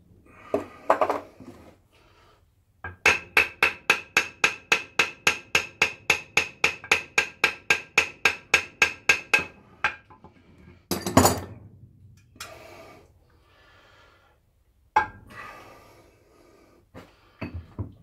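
Hammer striking metal parts inside a Holden M20 four-speed gearbox case. It starts with a fast, even run of about four ringing blows a second lasting some seven seconds, followed by a few single heavier knocks.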